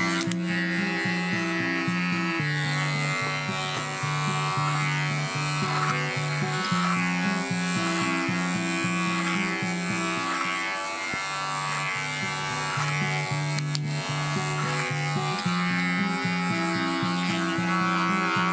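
Electric hair clipper buzzing steadily during a haircut, under background music with a steady beat.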